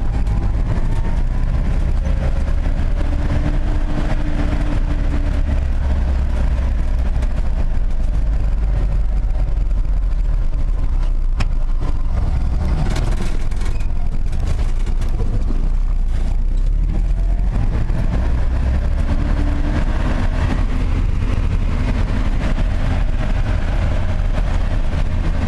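A motor vehicle driving: a steady low rumble of engine and road noise, with a faint whine that drifts up and down in pitch now and then.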